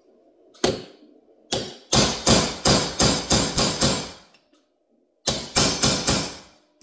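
Small hammer tapping brass pads into the slider of a Mitutoyo height gauge: two single taps, then a quick run of about eight, a pause, and about five more.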